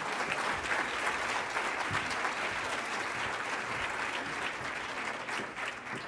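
Audience applauding, a steady dense clapping that tapers off near the end.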